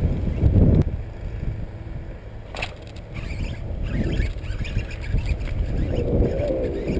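Wind rumbling on an action camera's microphone, dropping away sharply about a second in. One sharp click about two and a half seconds in.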